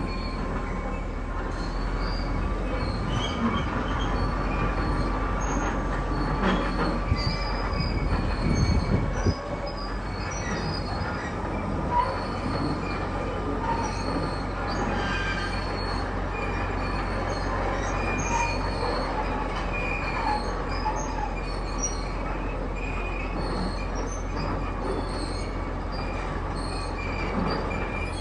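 Steel wheels of a shipyard's rail cradle squealing and grinding on its rails as it is hauled along, over a continuous low rumble. The rumble swells about eight seconds in and drops off suddenly just after nine seconds.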